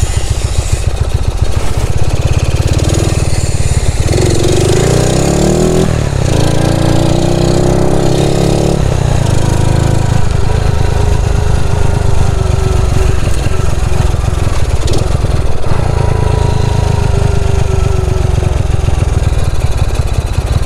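Freshly overhauled Yamaha SRX two-stroke moped engine running under way, its buzzing pitch rising as it accelerates about four seconds in and again at six, then holding a steadier speed.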